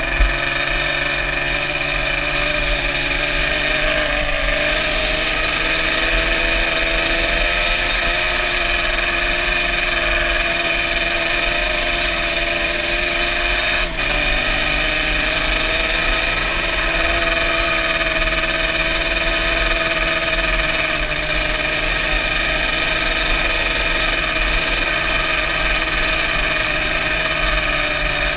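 Yamaha Banshee's two-stroke twin engine running steadily at speed, with one brief dip about halfway through.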